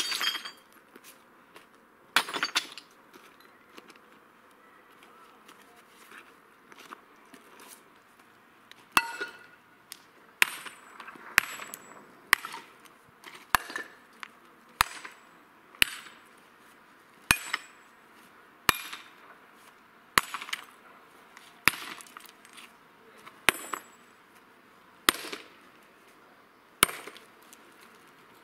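Sledgehammer striking flat stone slabs to break them into rubble: sharp cracking blows about every one and a half seconds from about nine seconds in, after a couple of stones clatter down near the start.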